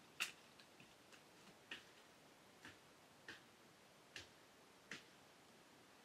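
Faint, sharp knocks of branches being cut in a tree for goat fodder, about six at uneven intervals of roughly a second, stopping about five seconds in.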